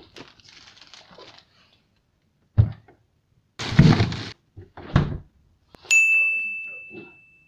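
Refrigerator being opened and shut by hand: a knock, a loud rustling scrape while something is pushed inside, another knock, then a sharp clink that rings on and fades over about a second and a half as the door closes.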